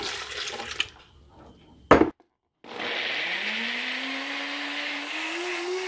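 NutriBullet Rx blender grinding onion, garlic and ginger with water. The motor spins up and its whine rises in pitch over about two seconds, then holds steady. Just before it starts there is a single sharp knock.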